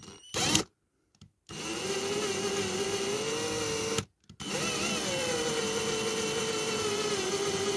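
Cordless drill running steadily as it drills down into the peened-over post (the "mushroom") on a diecast model car's body. It stops briefly about halfway through, then starts again with a brief dip in pitch and runs on.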